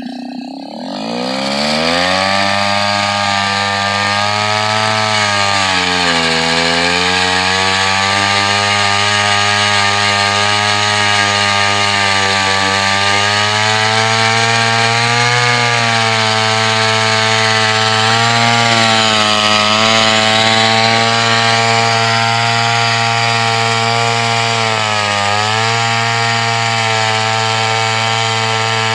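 Gas-powered ice auger's engine revving up to full throttle about a second in, then running hard as the auger bores into the ice, its pitch sagging and recovering twice as the bit loads up.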